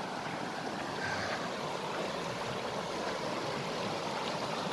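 Mountain creek rushing over rocks, a steady even rush of water.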